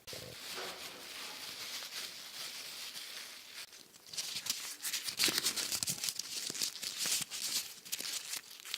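Crinkling and crumpling: a soft, steady rustle for about three and a half seconds, then louder, dense crackling after a short pause.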